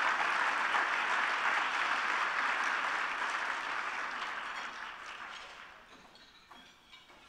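Audience applauding, the clapping steady at first and then dying away over the last few seconds.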